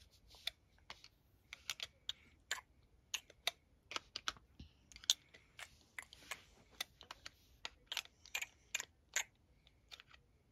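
Light plastic clicking as a toy spoon is worked against a Baby Alive doll's mouth during pretend feeding: short, irregular clicks, a few a second.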